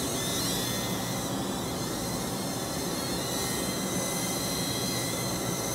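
Neheme NH320 Skywalker whoop-style mini drone's four small motors and propellers whining steadily in flight, a high-pitched whine that wavers slightly in pitch as it manoeuvres.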